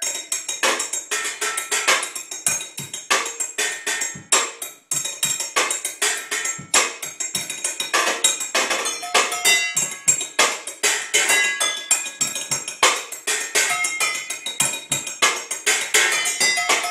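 Butter knives drumming fast rhythms on pots, pans and bowls: rapid sharp metallic strikes, with the pots and bowls ringing at several different pitches. There is a brief break about five seconds in.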